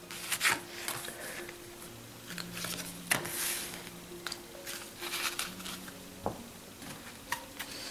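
Tarot cards being dealt onto a cloth mat: soft taps and slides of cards at irregular intervals, over faint background music with held notes.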